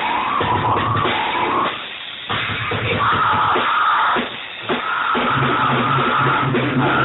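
Heavy rock music with guitar, dropping away briefly twice.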